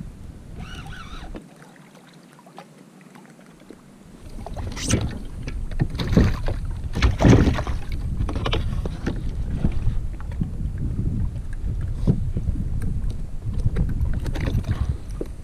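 Wind rumbling on the microphone aboard a kayak, with a run of sharp knocks and splashes about five to eight seconds in, loudest near seven seconds, as a kawakawa (mackerel tuna) is pulled out of the water and handled on deck.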